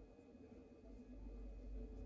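Near silence: quiet room tone with a faint steady low hum.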